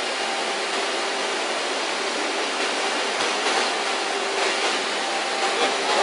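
Textile finishing machinery running: a steady rushing noise with a faint, even hum under it.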